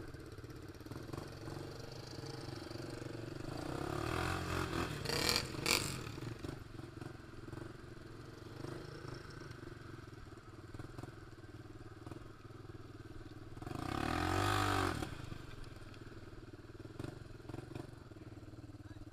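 ATV engine running on a muddy trail, revving up twice: once about four to six seconds in and again near fourteen seconds in, where the pitch climbs and falls. A couple of sharp clattering noises come with the first rev.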